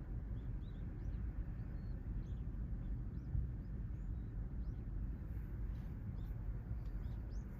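Steady low rumble of surf from a large swell, with small birds giving many short, high chirps over it.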